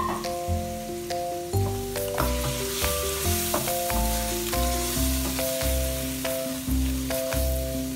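Diced raw chicken sizzling in hot oil in a nonstick pan as a silicone spatula stirs it. A backing track of steady melodic notes over a regular bass beat plays over it and is at least as prominent.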